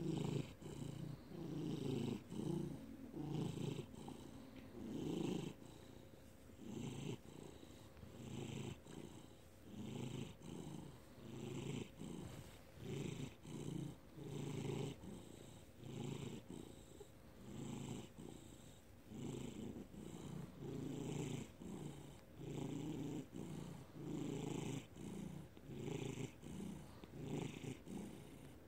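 Orange tabby cat purring steadily, the purr swelling and fading with each breath in and out, a little over once a second.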